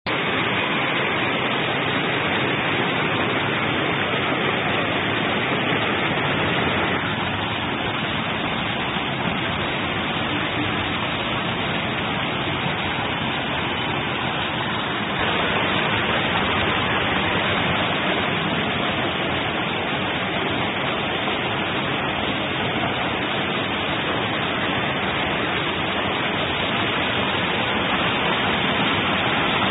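Rainwater streams cascading down between boulders, a steady loud rush of water close to the microphone. It shifts slightly in level twice, about seven and fifteen seconds in.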